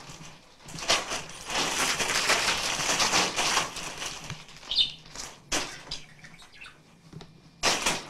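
Plastic carrier bag rustling loudly as it is swung and shaken about, then a few short, sharp bursts in the second half.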